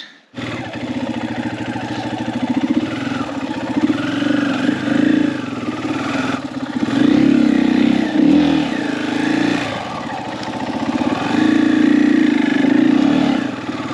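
KTM 500 dirt bike's single-cylinder four-stroke engine revving under load as the bike climbs a sandy, rocky washout bank. The throttle surges three times, around four, eight and twelve seconds in, with the pitch rising and falling.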